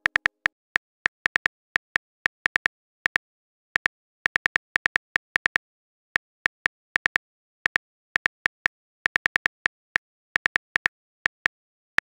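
Phone keyboard typing sound effect: quick key clicks in irregular runs of two to five, with short gaps between runs.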